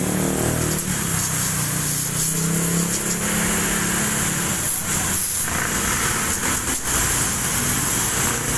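Garden hose spraying a jet of water onto the aluminium fins of a car air-conditioning evaporator core, a steady hiss. An engine hum runs under it for about the first half and then fades.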